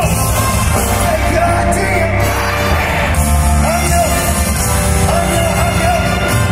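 Live hip-hop performance played loud through a concert sound system in a large hall: a heavy, steady bass beat with vocals over it.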